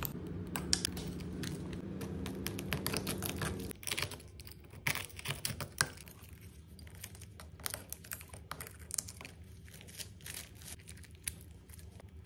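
Shattered iPhone XR back glass being chipped and scraped off with a metal pick: irregular sharp clicks and crackles of glass breaking away. A steady low hum under the first few seconds stops about four seconds in.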